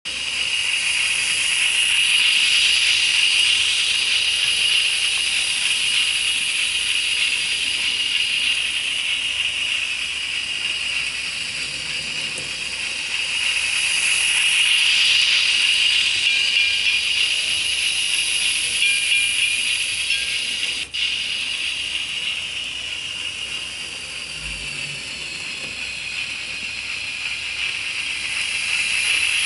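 Arnold 2960 N-scale electric model train running laps with its DCC sound, a steady high hissing whir that swells each time the train comes close, about every 13 seconds. A single sharp click about two-thirds of the way through.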